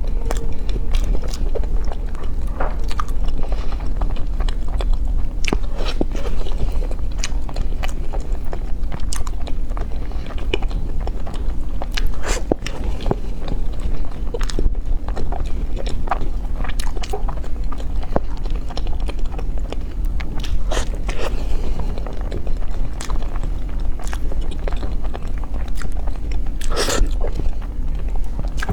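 Close-miked eating: chewing and biting, with frequent short crisp clicks and crunches, over a steady low hum.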